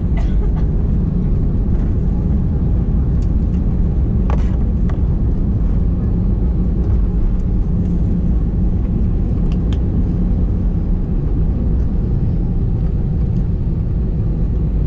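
Cabin noise of an Airbus A320-family airliner rolling along the runway after touchdown: a steady low rumble from the jet engines and the wheels, with a few faint clicks and rattles, the clearest about four seconds in.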